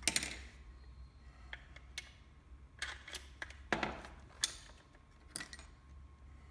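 Irregular clicks and light metallic knocks as the nose piece is fitted back onto a cordless fencing stapler, with a low steady hum underneath.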